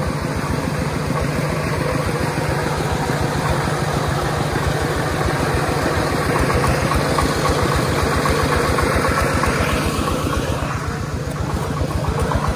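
Stationary diesel engine of a converted Iseki farm tractor running steadily, its firing pulses giving a rapid, even low beat.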